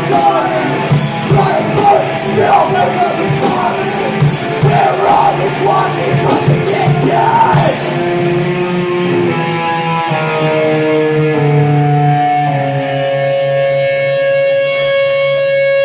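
Live rock band: singing over guitar and drums with steady cymbal hits. About eight seconds in, the drums and voice drop away and long held notes ring out one after another, ending on a single held note as the song closes.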